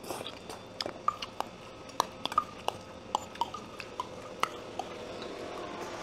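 Metal spoons clinking and scraping irregularly against small stainless-steel bowls as rice is stirred into the stew sauce and eaten, some clinks ringing briefly, with soft wet chewing between them.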